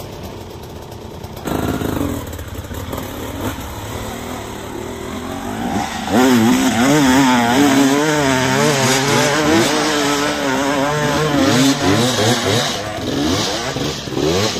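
Off-road vehicle engines revving, much louder from about six seconds in, the pitch rising and falling over and over as the throttle is worked.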